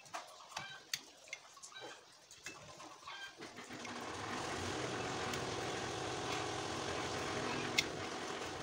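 Short scratchy ticks of a cutter knife carving a bamboo bird-cage hoop. About four seconds in, a small engine's steady running comes up and stays, louder than the knife, with one sharp click near the end.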